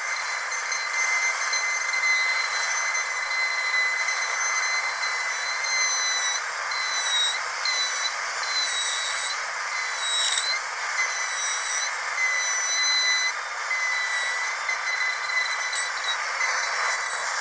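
A high-speed dental drill whines at a steady high pitch over a hiss. Its pitch dips briefly several times, most sharply about ten seconds in.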